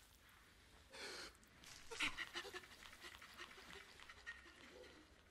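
Faint breathy sigh about a second in, then soft wet squelching and swishing as the slug monster slumps onto the floor and the wet mop works across it.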